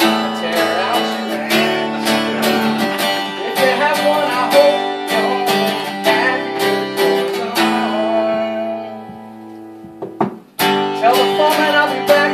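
Acoustic guitar strummed in chords while a man sings along. Near the end the chords ring out and fade for about two seconds, then the strumming starts again.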